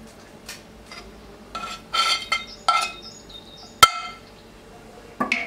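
Cookware clinking: a few short ringing knocks of a frying pan and utensils, then one sharp ringing clink about four seconds in.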